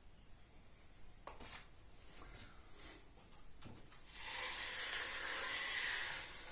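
Filling knife scraping filler across a drywall joint: a few short strokes, then one longer, louder scrape about four seconds in lasting about two seconds.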